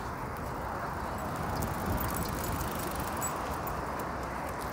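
Steady city-street traffic noise of cars going by, with a few faint high ticks around two seconds in.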